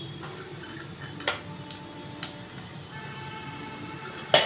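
Whole spices crackling in hot ghee in a pan: a few sharp pops at irregular intervals, the loudest near the end.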